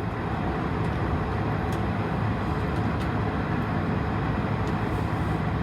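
Steady hum inside an Airbus A220-300 airliner cabin, the even rush of the aircraft's air and systems, with a few faint clicks.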